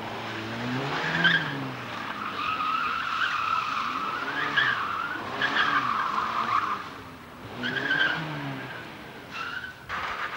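Car tyres squealing on asphalt again and again as the car is thrown hard through tight turns, one squeal held for several seconds. Under it the engine revs up and down.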